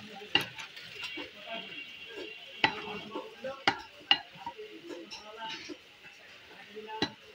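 Butcher's cleaver chopping beef on a wooden log chopping block: about five sharp knocks, spread unevenly, with the blade striking through the meat into the wood.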